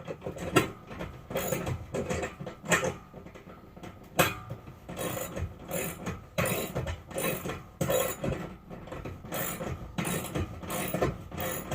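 Ratchet socket wrench clicking in quick repeated strokes as it loosens a bolt on a bed frame.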